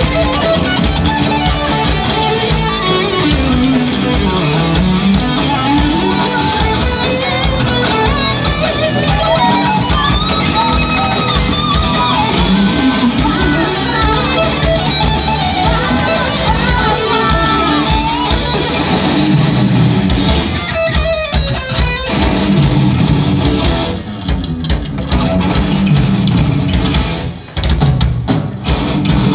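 Live rock band playing loud, with electric guitars, bass and a drum kit, and a melody line winding up and down over the band. About two-thirds of the way in, the steady playing breaks up into separate accented chord-and-drum hits with short gaps between them.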